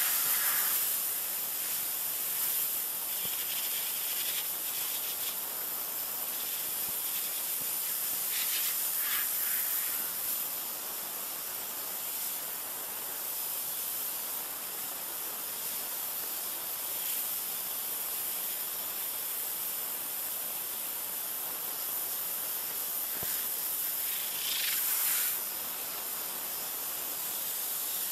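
Water jet from a 3000 psi pressure washer spraying onto a plastic chair: a steady high hiss of spray that briefly grows louder about a second in, again around eight seconds in, and near twenty-five seconds in.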